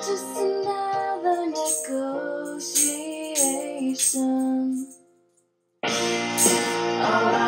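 Female voice singing a slow pop ballad, with a hand tambourine jingling along in time. A little past the middle the sound cuts out completely for about half a second, then the music returns fuller and louder.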